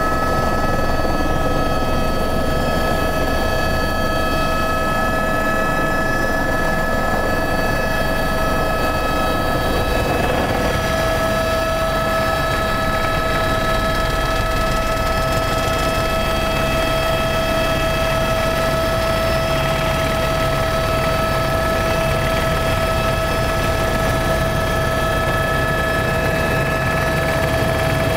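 Helicopter engine and rotor noise heard from inside the cabin: a steady loud din with a high whine. The whine steps slightly higher about ten seconds in as the helicopter lifts off the snow and climbs away.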